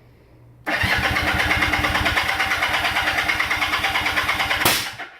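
1976 Kawasaki KZ400's parallel-twin engine turning over in a start attempt after sitting on old fuel: it starts suddenly about a second in, runs with an even pulsing beat for about four seconds, then cuts off abruptly with a sharp crack.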